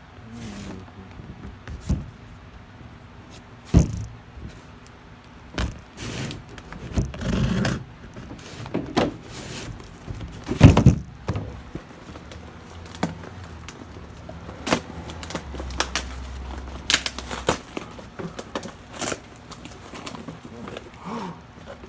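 A shipping package being handled and opened by hand: scattered knocks and clicks with short bursts of tearing and crinkling. The loudest knock comes about eleven seconds in.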